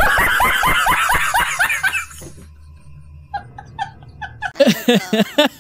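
A man laughing hard in quick repeated bursts. It dies down after about two seconds, then picks up again as a second fit of shorter, rhythmic laughs near the end.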